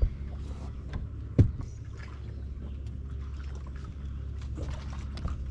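Steady low hum of a fishing boat's motor, with water lapping against the hull and a few knocks on the boat. The loudest knock comes about one and a half seconds in.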